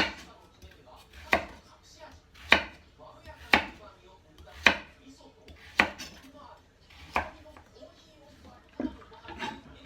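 Kitchen knife chopping on a cutting board in slow single strokes, about one a second, with the last two strokes softer.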